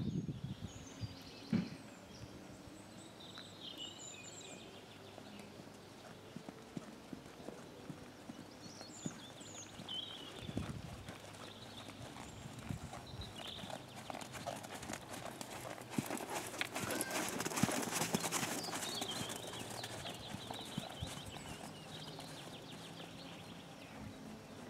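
Ridden horse trotting on a sand arena surface: a steady run of soft hoofbeats, growing louder for a few seconds past the middle.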